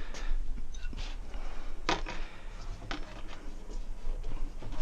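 Lubed rubber motorcycle tire being pushed by hand over the rim to seat its first bead, with a few short knocks, the clearest about two and three seconds in.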